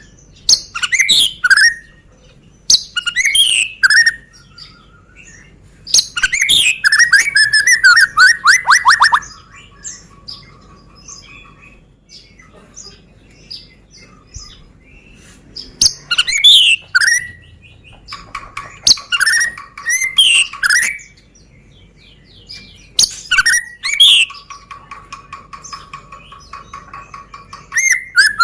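White-rumped shama (Medan murai batu) singing: loud bursts of varied whistled phrases and fast runs of repeated notes, broken by short pauses.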